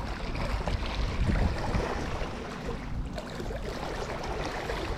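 Small waves lapping and splashing against shoreline rocks, with wind buffeting the microphone as a steady low rumble.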